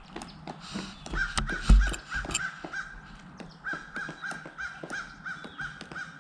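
Pileated woodpecker calling: two runs of rapid, evenly spaced notes, about three or four a second, the first starting about a second in and the second about halfway through. Short clicks of footsteps run underneath, with one loud thump about two seconds in.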